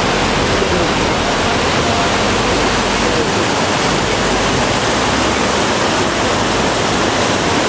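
Water spilling steadily over the small weirs between concrete trout-farm raceways and pouring in from their inlet pipes, a loud, even rush of falling water.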